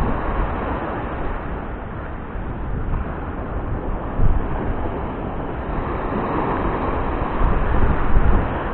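Wind buffeting the microphone over a steady rushing of sea and water noise, with no clear machine tone.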